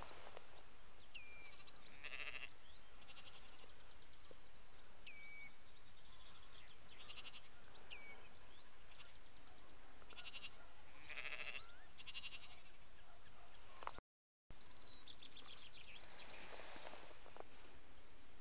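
Redshank calling: clear whistles that slide downward and quick runs of repeated high piping notes, coming again and again against other birdsong. Twice a louder, lower bleat-like call stands out.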